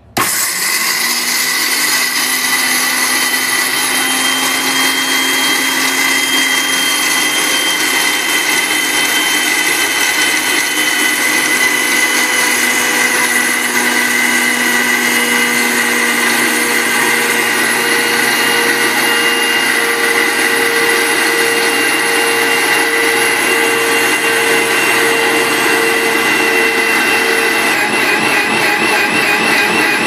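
Sujata Powermatic Plus 900-watt mixer grinder switched on and running steadily, grinding wheat grains into flour in its stainless-steel dry grinding jar. It starts suddenly and holds an even, loud whir throughout.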